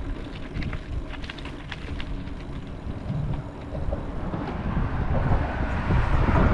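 Wind buffeting the microphone in a low, uneven rumble, with scattered light ticks in the first couple of seconds and a broader rushing hiss building toward the end.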